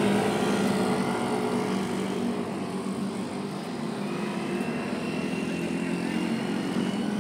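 Road traffic passing close by. A motor scooter's engine goes by and fades away over the first few seconds, leaving a steadier traffic hum as a car drives past later.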